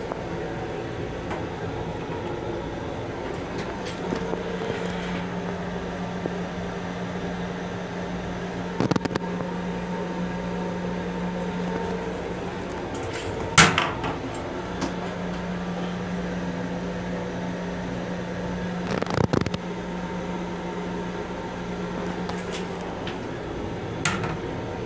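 Steady hum of a Long Island Rail Road M7 railcar heard from inside its small restroom, with a constant low tone that drops out briefly about halfway through. A few sharp knocks and clunks break through, the loudest about halfway.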